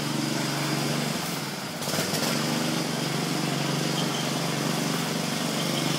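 Small engine of a self-propelled walk-behind lawnmower running steadily under load. Its pitch and level sag briefly, and a short knock comes about two seconds in.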